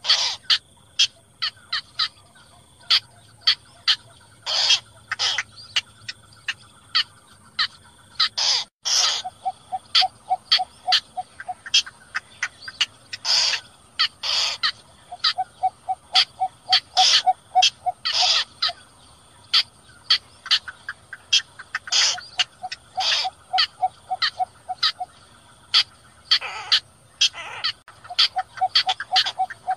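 Lure recording of bittern calls, the 'cò lép' and cinnamon bittern ('cò lửa'), played for night netting. Many sharp, short calls come one after another, and every few seconds there is a run of quick low clucks at about five a second, all over a steady high hiss.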